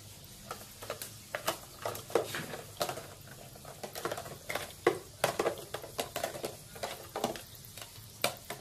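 Plastic toy dishes knocking and clattering in a plastic toy sink as a capuchin monkey handles them: irregular light clicks and knocks, several a second.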